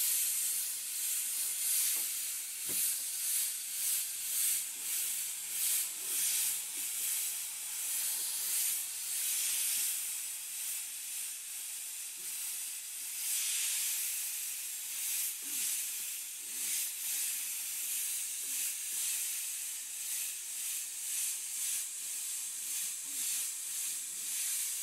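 Iwata Eclipse airbrush running on about 80 PSI, spraying paint in a high hiss that swells and fades with each pen stroke of the lettering.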